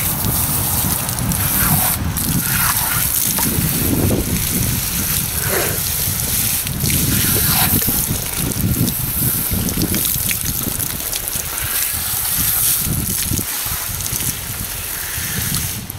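Water spraying from a pistol-grip garden hose nozzle onto a skinned rabbit carcass and splashing onto the grass, steady with small changes as the spray is moved, over a low rumble.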